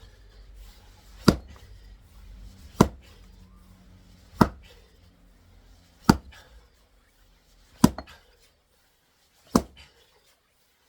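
Axe striking a knotty firewood log six times, about one blow every second and a half. The knot keeps the log from splitting easily, so the blows land on the side opposite the knot.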